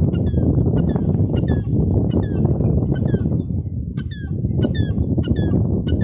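Gull calling over and over in short cries, each falling in pitch, about three a second, over a loud steady low rumble.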